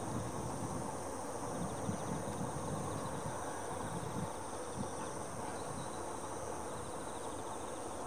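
Steady high-pitched chorus of autumn field insects such as crickets, with a faint fast-ticking trill, over a low rumble.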